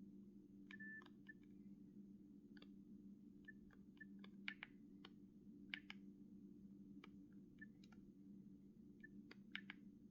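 Faint, irregular clicks of a Nokia 6670's keypad being pressed, about a dozen over several seconds, some with a short high beep. They sit over a low steady hum.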